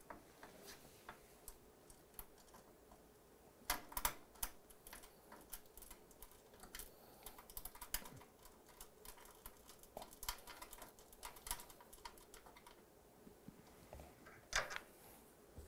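Faint scattered clicks and taps of fingers fitting and hand-turning a small fastener at the base of an espresso machine's metal housing. There is a louder cluster of clicks about four seconds in and another near the end.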